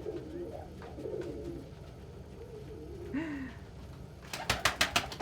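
Domestic pigeons cooing in low, warbling coos, with one falling call about three seconds in. Near the end comes a quick run of sharp claps, like pigeon wings flapping.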